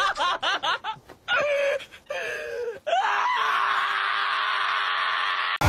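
A man laughing in short choppy bursts, then letting out one long, unbroken, breathy laugh of about three seconds that cuts off suddenly near the end.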